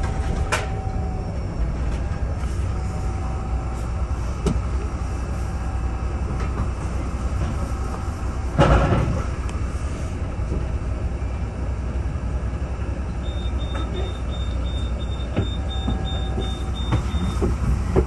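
Steady low rumble of a double-decker bus in motion, heard from inside on the upper deck, with a loud knock about halfway through. Later comes a run of about ten short high beeps over some four seconds.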